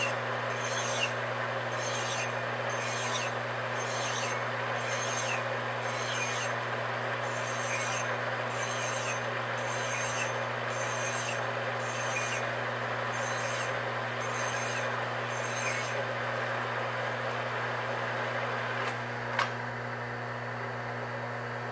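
Flat file stroked against the rim of a cast flywheel spinning in a lathe, giving about three even rasping strokes every two seconds over the lathe's steady hum. The filing stops about 16 seconds in, leaving the lathe running, with a single click a few seconds later.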